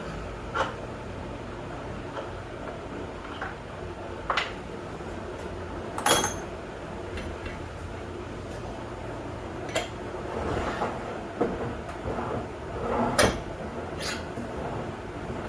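Scattered clanks and knocks of metal tools and hardware being handled while a bench vise is bolted down, about seven sharp ones with the loudest about six seconds in and some clattering later, over a low steady hum.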